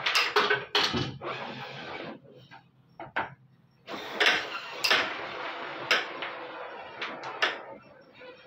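Carrom striker flicked across a carrom board twice, about four seconds apart: each time it slides with a hiss and clacks sharply several times against the coins and the board's wooden rails.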